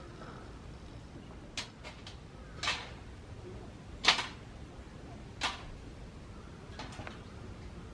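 A handful of short, sharp knocks and clacks at uneven intervals, the loudest about four seconds in, over a steady low rumble.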